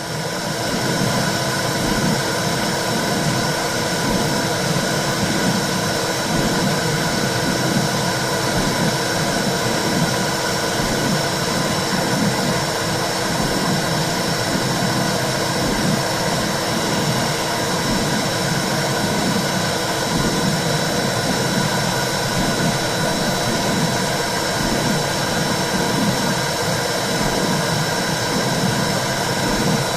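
Womb sound for soothing a baby: a steady whooshing noise with a regular low pulse like a heartbeat. It swells in from silence at the very start.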